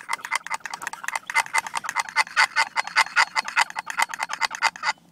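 Turkey gobbling: a fast rattling run of notes, about ten a second, for nearly five seconds, cutting off abruptly near the end.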